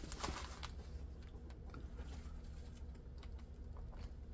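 Faint handling of a diamond painting canvas under its plastic cover film: a brief rustle at the start, then scattered small crinkling clicks as it is shifted and held.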